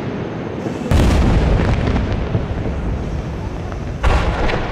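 Aerial firework shells bursting: a loud boom about a second in and another about four seconds in, each trailing off in a long rumbling echo.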